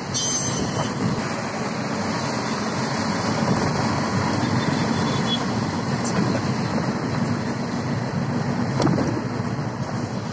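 Steady road and wind noise heard from inside a moving car cab.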